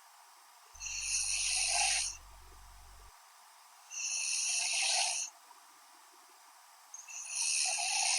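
A sleeping woman snoring lightly: three airy, hissy snoring breaths, each about a second and a half long, coming about every three seconds.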